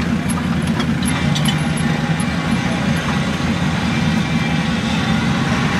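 A vehicle engine running steadily, an unbroken low rumble.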